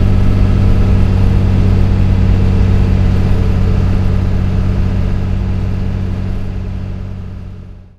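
5.9 Cummins straight-six diesel swapped into a 1973 Travco 270 motorhome, running steadily at an even engine speed, then fading out over the last few seconds.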